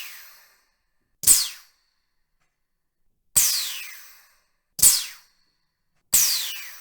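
Pressurised air let out in a series of sudden hissing blasts, each fading out with a whistle that falls in pitch. Four blasts start, longer ones of about a second alternating with shorter ones of about half a second.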